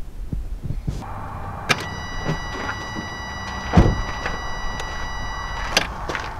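GM LS 90mm electronic throttle body's motor clicking as it moves the throttle plate during the throttle valve closed position relearn. A steady high whine while the motor is energized starts and stops with a click, and the loudest click comes about halfway through.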